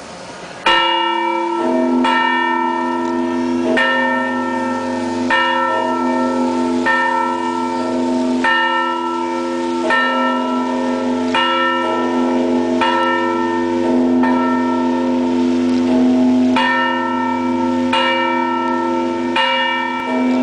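Church bells pealing, several bells struck over and over in a steady peal from about a second in, rung as the monstrance is raised for Eucharistic benediction.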